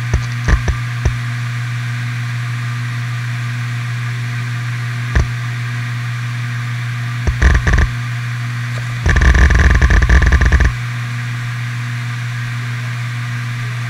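Toshiba MK1002TSKB 1TB 7200 rpm 3.5-inch enterprise hard drive spinning with a steady spindle hum. Head-seek clicks come as it initialises: a few near the start, one at about five seconds, and a short cluster a couple of seconds later. Then comes about a second and a half of rapid, continuous seek clatter during a quick format, before it settles back to idle spin.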